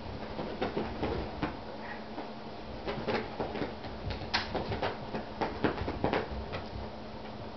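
Irregular soft thumps, taps and scuffs of two kittens pouncing and scrambling on carpet, mixed with a person's footfalls, with one sharper knock about four seconds in.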